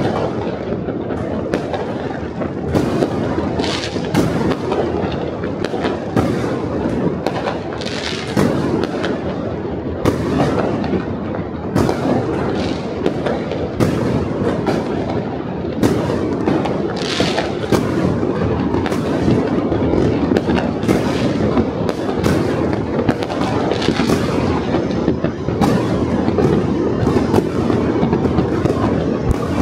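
Many fireworks and firecrackers going off at once: a continuous rumble of distant bangs, with sharper, nearer cracks every second or so.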